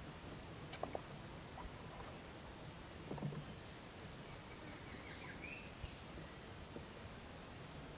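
Faint open-air quiet over the river, broken by a few light clicks in the first two seconds and a dull low knock about three seconds in. Faint high chirps follow about five seconds in.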